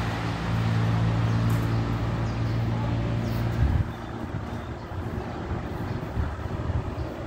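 A steady low mechanical hum with a buzzy, pitched tone cuts off suddenly about halfway through, leaving a fainter uneven rumble.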